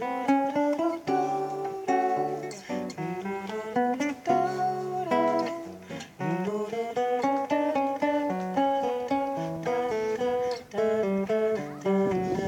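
Acoustic guitar being played: picked notes and chords following one another in a running melody.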